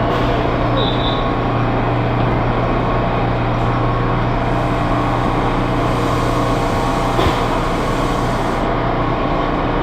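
MTA R179 subway train running with a steady low hum and even noise. A brief high beep sounds about a second in.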